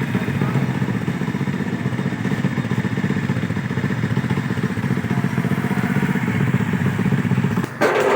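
A small engine running steadily with a fast, even pulsing, which breaks off near the end after a short sharp noise.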